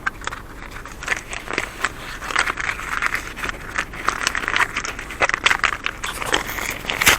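Rustling, crinkling and many small irregular clicks of plastic being handled.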